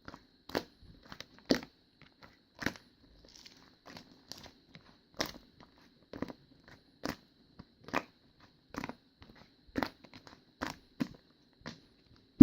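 Slime being kneaded and mixed by hand, giving sharp pops and crackles of trapped air about once a second, ending with a louder thump.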